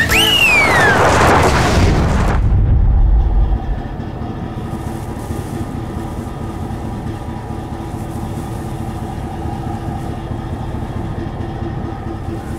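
Chevrolet Silverado pickups sliding through a donut on dirt, engines revving with a falling squeal and a rush of tyre and gravel noise for about two seconds. A low rumble follows and stops about three and a half seconds in, and a steady, quieter drone holds after it.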